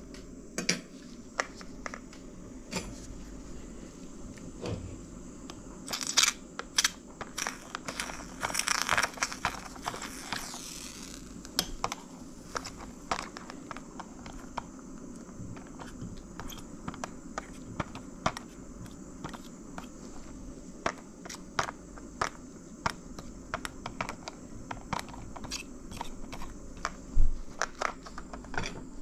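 Scattered clicks, taps and plastic crinkling as a clear plastic agar tub, a metal scalpel and glass grain jars are handled, busiest from about six to eleven seconds in, with one sharper knock near the end. A steady background hiss runs underneath.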